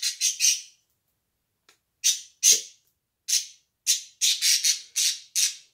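A small pet's short, harsh, high-pitched squawks: a fast run that dies away, then after a pause of over a second, single squawks about every half second.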